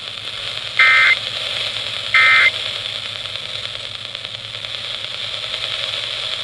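Two short bursts of buzzy digital data tone from a NOAA Weather Radio receiver, about a second and a half apart in the first half: the SAME end-of-message codes that close an EAS Required Weekly Test. Steady radio static hiss runs between and after the bursts.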